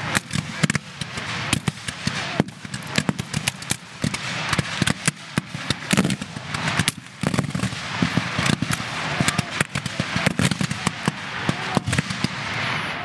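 Sustained ragged musket fire from a line of black-powder rifle-muskets: many sharp shots overlapping at irregular intervals with no let-up.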